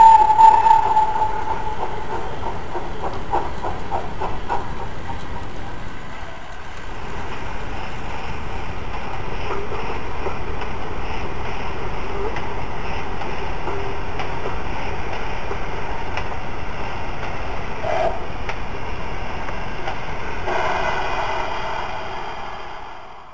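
Model railway train running past on the layout's track: a steady rumbling clatter of wheels and motor, with a brief high squealing tone right at the start, fading away near the end.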